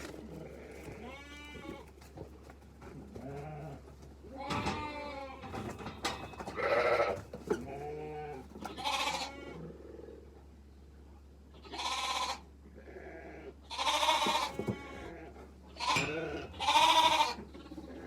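Sheep and lambs bleating, many separate calls from several animals with a quavering pitch, the loudest coming in the second half.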